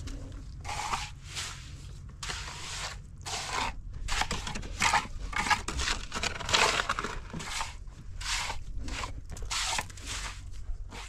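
Tools scraping through wet cement mortar in irregular strokes, about one or two a second: a steel trowel smoothing a fresh cement surface and a hoe mixing mortar in a metal wheelbarrow.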